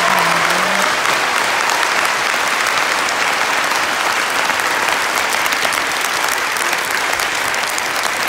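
Audience applauding, a dense clapping that holds at a steady level.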